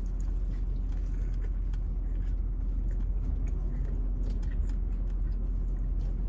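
Chewing a bite of pulled pork sandwich, with faint wet mouth clicks, over a steady low rumble.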